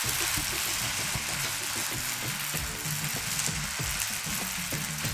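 Idli batter sizzling steadily in a hot oiled frying pan as it is spread with a ladle, under soft instrumental background music.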